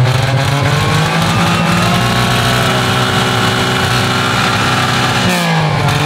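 Car engine being revved: its pitch climbs over the first couple of seconds, holds high, then drops back toward idle a little after five seconds in.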